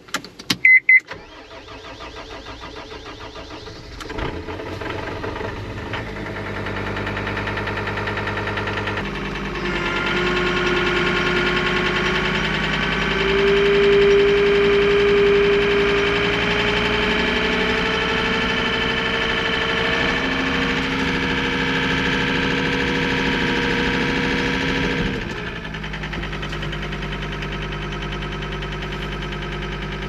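A few sharp clicks, then a vehicle engine running. From about ten seconds in it runs harder for roughly fifteen seconds, with a slowly rising whine, then drops back to a steady idle.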